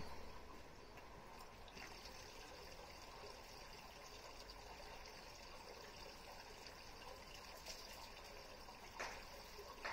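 Water trickling faintly and steadily into the stone basin of a Shinto shrine's temizuya, the hand-washing fountain. A couple of faint knocks near the end.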